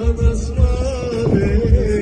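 Loud music: a wavering, ornamented melody line over a heavy, repeating bass beat.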